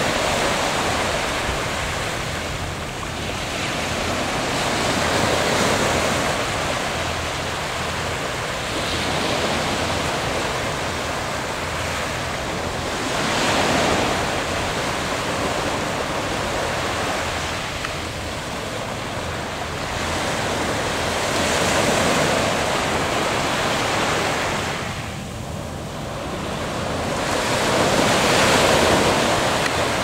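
Small Atlantic waves breaking and washing up a sandy beach: a hiss that swells and fades every few seconds, with a low rumble of wind on the microphone.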